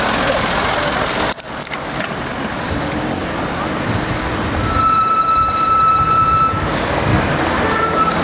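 City street traffic heard from a moving bicycle: a steady rush of passing cars and road noise. About halfway through, a steady high tone is held for about two seconds.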